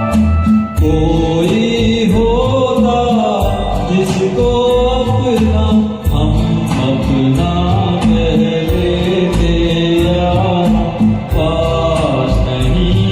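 Hindi film-song accompaniment playing: a gliding melody over a steady percussion beat.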